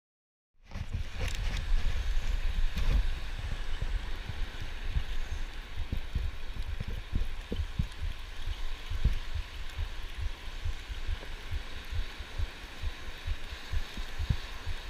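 Ocean surf washing steadily, with irregular low rumbling thumps of wind buffeting the microphone; it starts suddenly about half a second in.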